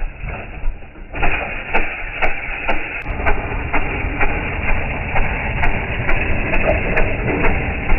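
Slowed-down sound of a mini bike's small engine: a rough, low-pitched rumble that suddenly gets louder about a second in, with sharp knocks about twice a second.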